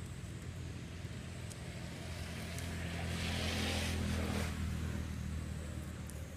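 A motor vehicle's engine hums steadily. It swells as the vehicle passes, loudest about three to four seconds in, then fades.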